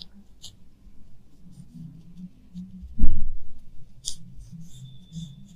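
Fingers rubbing and pressing a vinyl skin onto a phone's back, giving faint rustles and small clicks, with one loud thump about three seconds in.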